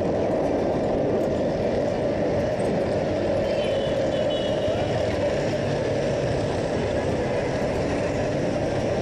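Motorcycle riding through city traffic, recorded on the bike: steady engine and road-wind noise with no change in pace.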